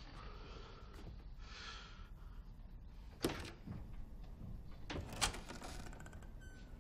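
Two sharp knocks about two seconds apart, over low background noise.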